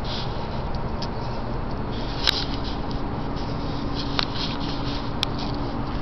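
A thin plastic drinking straw clicking and scratching lightly against a concrete floor as a kitten bats at it, with three sharper clicks, over a steady low background noise.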